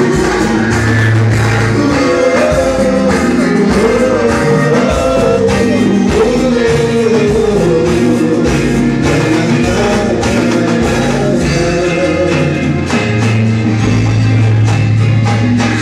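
Loud live band music with a steady drum beat and a melodic lead line, played through the stage sound system, with singing.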